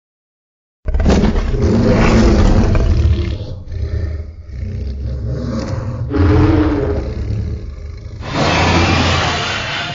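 Tyrannosaurus rex roar sound effect: a long, deep roar that starts suddenly about a second in, swells three times, and cuts off abruptly at the end.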